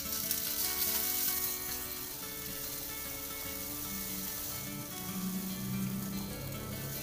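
Zeolite stones poured from a plastic bag into a tall PVC pipe: a dense, continuous rush of small stones sliding and rattling down the tube, loudest in the first couple of seconds, with background music underneath.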